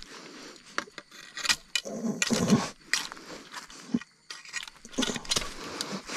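Dry eucalyptus leaf litter crackling and rustling underfoot as someone steps through it, with irregular sharp clicks and scrapes.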